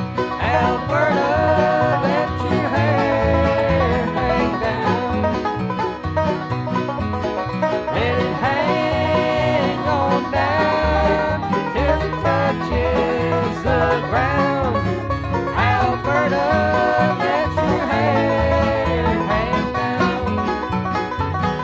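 Bluegrass band playing an instrumental passage: banjo and guitar over a steady bass pulse, with a lead line that slides and bends between notes.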